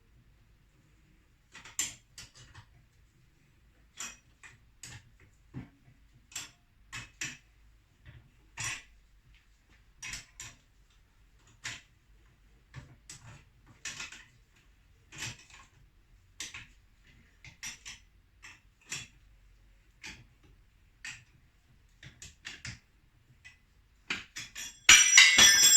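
A metal spanner clinks against nuts in short, irregular clicks, a few a second, as the nuts are tightened one turn at a time to compress the shock's spring. Near the end a metal tool is dropped and clatters loudly, ringing.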